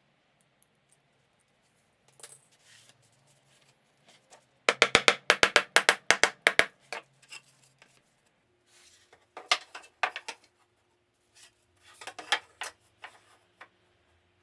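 Hard wooden clacks and knocks: a quick run of about a dozen sharp strikes in the middle, then two shorter clusters later, as pieces of a wooden windscreen are handled and knocked together.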